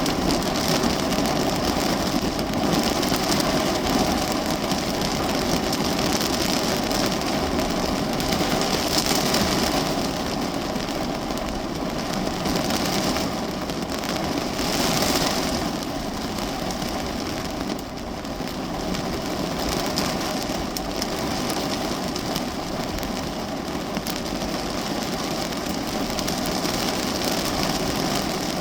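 Rain falling on a parked car, heard from inside the cabin as a steady hiss, swelling heavier for a moment a few times.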